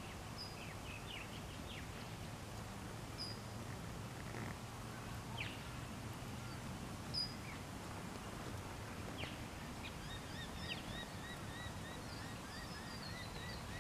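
Faint steady outdoor ambience with scattered bird calls, short chirps and quick sweeps. About ten seconds in, a bird starts a fast run of repeated short chirps, about three a second.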